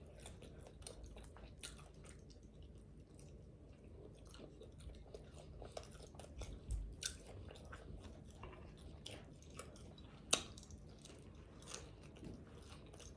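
Close-miked chewing and mouth smacking of fried chicken wings, with scattered crisp crunches and clicks; the sharpest crunch comes about ten seconds in.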